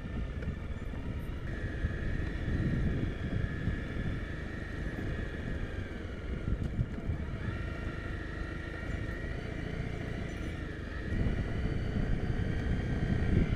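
Honda CRF250 Rally's single-cylinder four-stroke engine running on the overrun, engine braking down a rough dirt track, with a steady low rumble. A steady high whine sits over it, breaking off once midway.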